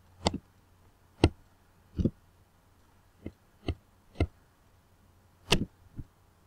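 About eight sharp taps or clicks at irregular intervals, each short and strongest low down, over a faint steady background hum.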